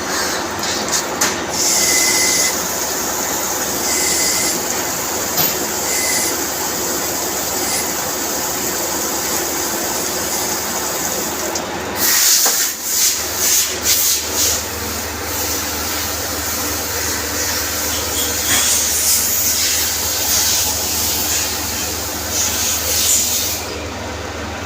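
CNC machine running: a steady mechanical hum with repeated bursts of high hissing noise, the strongest about twelve to fifteen seconds in.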